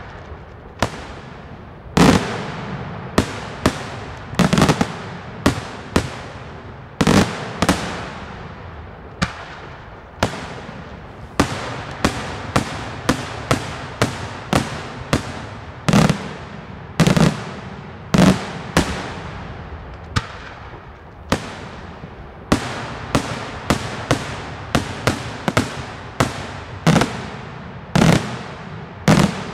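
Daytime aerial fireworks display: an unbroken, irregular series of sharp bangs from shells bursting overhead, about one or two a second, each trailing off in a short echo.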